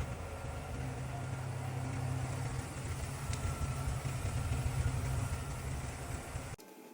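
Steady low mechanical rumble, like a running engine, that cuts off abruptly near the end.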